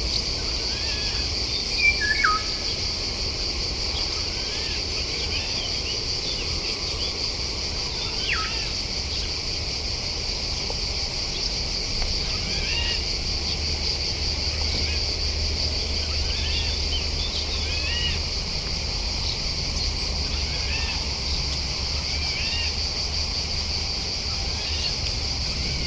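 Small songbirds chirping now and then over a steady, high, continuous insect buzz. Two louder calls slide sharply downward in pitch, about two seconds in and again about eight seconds in.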